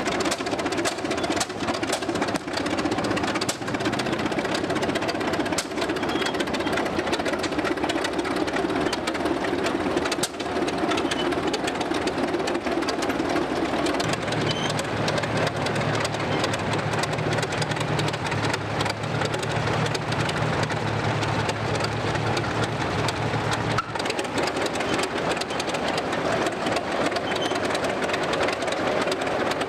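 Engine of an early Best Sixty crawler tractor running steadily. Its sound changes abruptly about halfway through, turning to a deeper hum, and changes again near the end.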